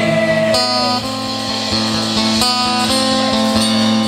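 Live band music with a strummed acoustic guitar over sustained chords and bass, between sung lines; a held sung note dies away within the first second.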